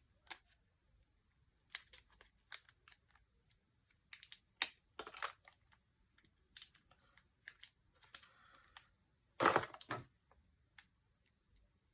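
Hands handling small doorbell hardware and packaging: scattered light clicks and taps with short rustles, the loudest rustle about nine and a half seconds in.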